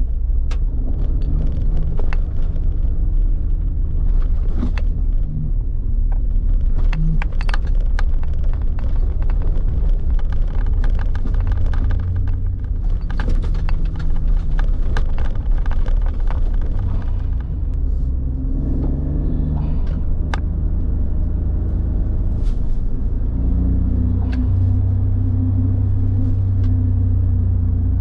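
Suzuki Jimny JB64 driving, its engine humming under a steady low rumble, with the pitch shifting now and then and many scattered clicks and knocks.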